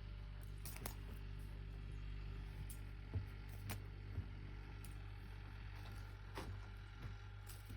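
Faint scattered taps, clicks and rustles of a cat playing with a teaser wand, over a steady low hum.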